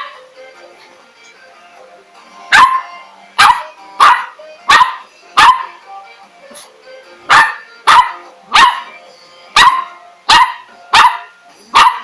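A dog barking: about a dozen sharp, loud barks in quick runs, starting a couple of seconds in, with a brief pause midway.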